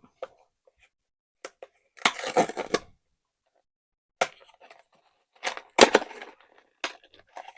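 A PopMart blind box being opened: packaging crackling and tearing in short bursts, with sharp clicks. The longest crackle comes about two seconds in and another around six seconds.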